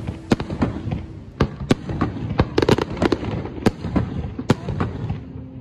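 Aerial firework shells bursting: a dozen or so sharp bangs at irregular intervals, several coming close together around the middle.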